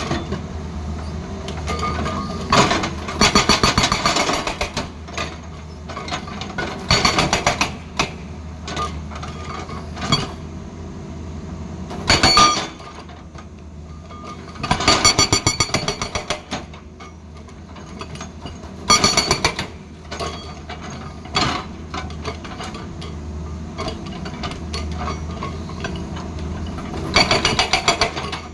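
Hydraulic rock breaker on a Tata Hitachi excavator hammering hard stone in several short bursts of rapid blows, each lasting about a second, with the excavator's diesel engine running steadily between them.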